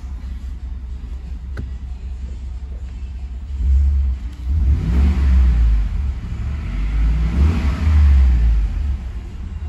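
2018 Ford F-150's 5.0-litre V8 idling, then revved twice, to about 3,000 rpm, each rev rising and falling, before settling back to idle near the end.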